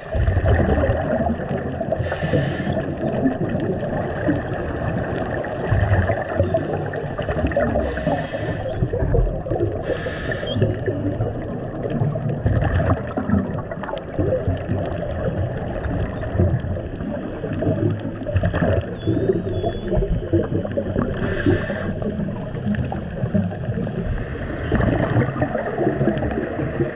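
Underwater sound picked up by a diving camera: a constant low rumble and crackle, broken by about five short hissing bursts of a scuba diver's exhaled regulator bubbles, a few seconds apart.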